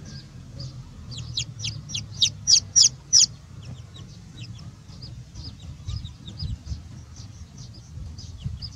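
Young chicks peeping: short, high cheeps throughout, with a louder, quicker run of peeps about one to three seconds in. A steady low rumble lies underneath.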